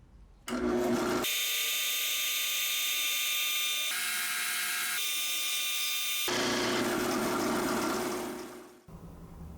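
A power tool running steadily, its tone changing abruptly a few times, then running down and stopping near the end.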